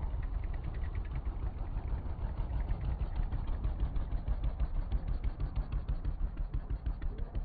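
An engine running at idle, a steady low rumble with a rapid, even ticking over it.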